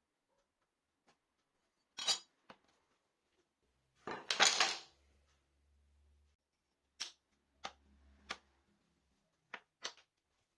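Hand tools and wood pieces being handled and set down on a workbench: a series of sharp knocks and clicks, with one louder, longer clatter a little past the middle.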